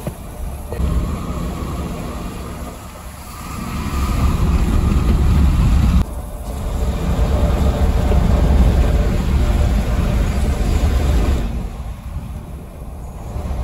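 Mercedes-Benz OH 1626 coach under way: diesel engine and road rumble, swelling louder about four seconds in. The sound breaks off sharply about six seconds in, builds again, then eases near the end.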